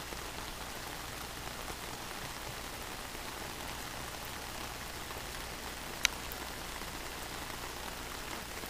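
Steady rain falling on pavement, an even hiss, with one sharp click about six seconds in.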